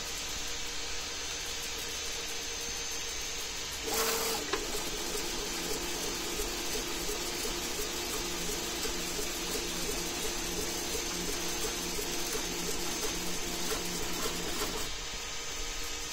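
3D printer's cooling fans humming steadily. About four seconds in there is a short rush, then the stepper motors sing in a quick, stuttering pattern of changing tones as the print head shuttles back and forth laying down a layer, stopping near the end.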